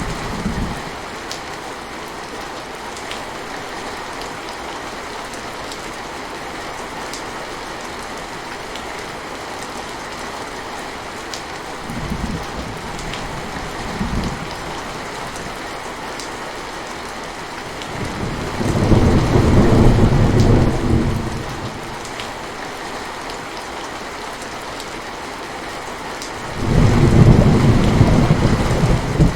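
Steady rain falling, with rolls of low thunder: a short rumble fading just after the start, two brief ones near the middle, and longer, louder rolls about two-thirds of the way through and near the end, the last cutting off suddenly.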